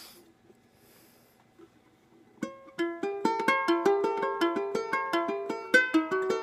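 Maccaferri Islander plastic ukulele plucked, playing a melody of quick separate notes that starts about two and a half seconds in, after a brief rustle at the start.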